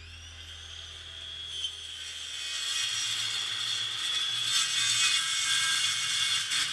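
Hitachi corded circular saw spinning up at the start and then running with a steady high whine that grows louder, with a short dip near the end.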